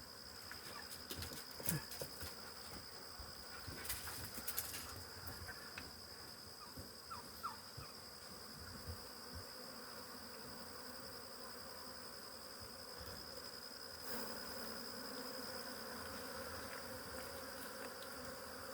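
A mass of honey bees buzzing around an opened hive, with a steady high tone running underneath and a few light knocks in the first few seconds; the buzzing gets a little louder about fourteen seconds in.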